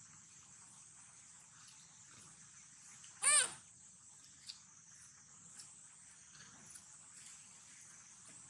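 A baby monkey gives one short, high cry that rises and falls, about three seconds in. Steady insect chirring and a few faint clicks continue underneath.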